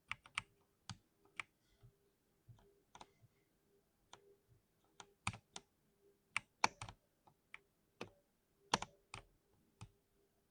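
Typing on a lubed (oiled) 60% mechanical keyboard: irregular, unhurried keystrokes, a few per second, that stop shortly before the end.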